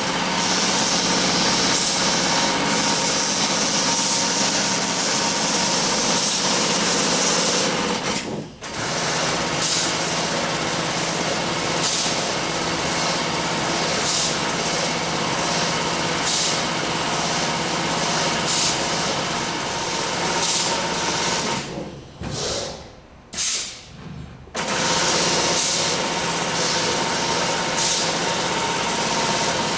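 Wilcom AutoTuft robotic tufting machine running steadily, its tufting head punching yarn into the backing cloth in a rapid mechanical clatter, with faint clicks about every second and a half. It drops out briefly about eight seconds in, and again in a broken gap a little after twenty seconds.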